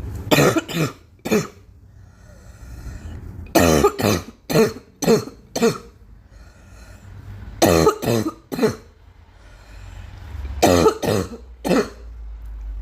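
A girl coughing in four fits, each of three to six harsh coughs in quick succession, with gaps of a couple of seconds between the fits.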